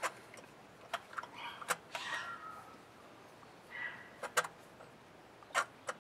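Hands handling plastic connectors and wiring on a car engine: a scattering of sharp clicks and short scrapes.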